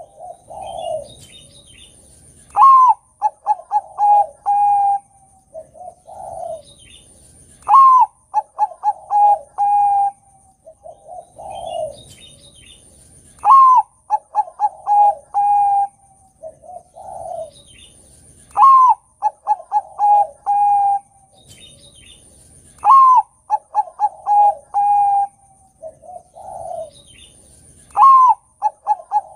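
Zebra dove of the Bangkok perkutut strain singing its cooing song, six phrases about five seconds apart. Each opens with a sharp rising-falling note, runs into a quick string of short notes and a long held coo, and ends on lower notes.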